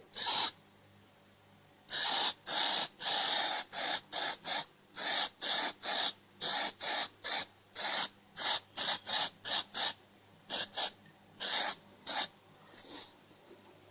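Aerosol spray can spraying a coating in about two dozen short hissing bursts, some held a little longer, starting about two seconds in and stopping about two seconds before the end.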